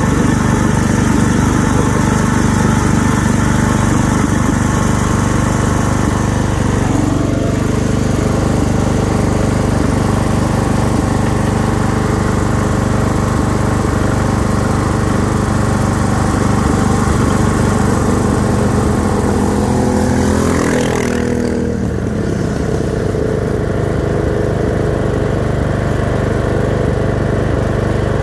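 Craftsman LT1000 lawn tractor's 24 hp V-twin engine with dual exhaust, running steadily under way, heard from the driver's seat. About three quarters of the way through, its pitch drops as it eases off, and it runs on at a lower, steady speed.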